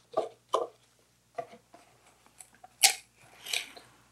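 Plastic wrap crinkling in about five short rustles as it is pressed down over the rim of a metal baking pan, the sharpest about three seconds in.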